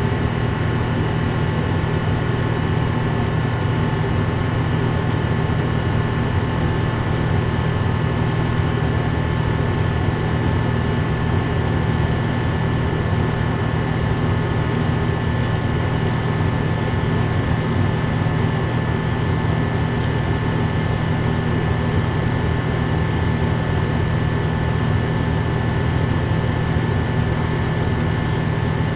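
Airbus A350-900's Rolls-Royce Trent XWB turbofan and airflow heard inside the cabin in flight: a steady low drone with several high, steady whining tones over it.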